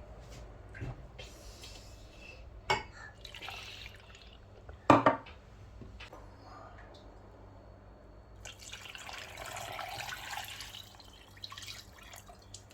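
Liquid dripping and pouring, with two sharp knocks, the louder about five seconds in, and a longer spell of pouring about two thirds of the way through.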